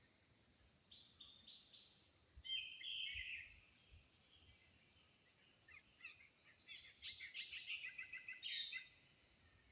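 Birds calling and chirping faintly, with runs of quick repeated notes about a second in and again from about six seconds until near the end.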